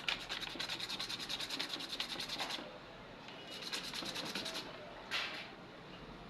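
Sandpaper rubbed by hand on a small part of an angle grinder's brush assembly, in rapid back-and-forth strokes, many a second. It goes in two spells with a short pause between them, then one short single rasp. This is cleaning a sticking contact so the carbon brushes make connection again.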